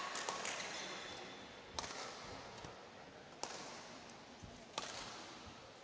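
Badminton rally: rackets striking the shuttlecock, with three sharp hits about a second and a half apart and fainter taps between.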